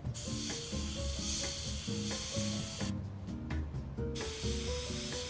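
Harder & Steenbeck Infinity airbrush spraying paint, a steady hiss that runs for about three seconds, stops for about a second, then starts again. Background music plays underneath.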